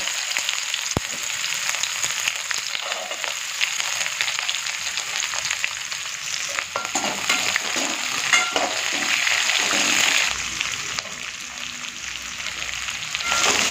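Sliced onions sizzling in hot oil in a kadai with mustard seeds, cumin and dals, stirred with a steel slotted spoon that scrapes and clicks against the pan. The sizzle is steady throughout, with stirring clicks scattered through it.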